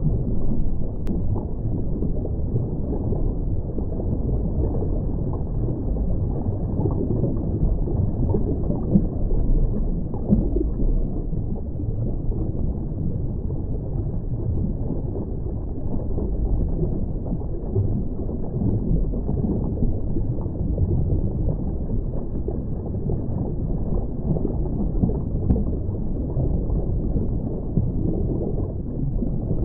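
Steady underwater ambience: a low, even rumble and rush of water with no distinct events.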